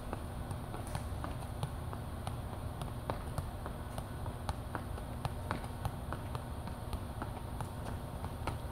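Football being juggled in kick-ups: an uneven run of light taps as foot, knee, chest and head touch the ball, a couple a second, over a steady low rumble.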